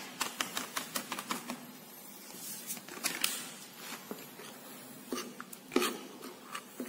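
Light crinkling and small clicks of a plastic sachet as coconut milk powder is shaken out of it into a ceramic bowl, a quick run in the first second and a half, then scattered clicks of a metal spoon against the bowl as the powder is stirred into broth.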